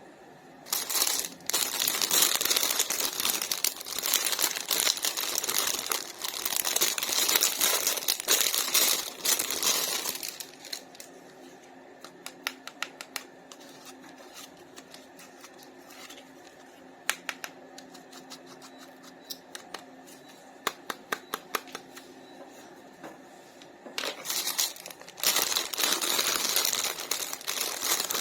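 Plastic toy packaging crinkling and rustling as it is handled and opened, in two long spells. Between them is a quieter stretch of scattered small plastic clicks and taps.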